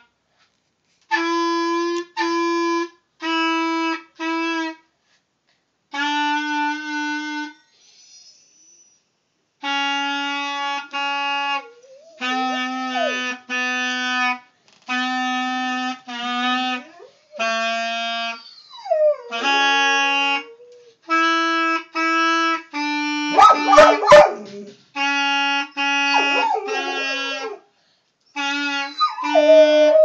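Clarinet played in phrases of held notes with short breaks, and a bird dog howling along with it, its voice sliding up and down over the steady notes from about twelve seconds in. A little past halfway the dog gives one sudden loud outburst, the loudest sound here.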